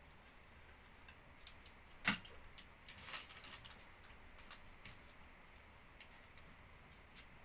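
Faint crackles and clicks of a whole roast chicken being pulled apart by hand on crumpled aluminium foil. There is one sharper click about two seconds in and a short run of crackling about a second later.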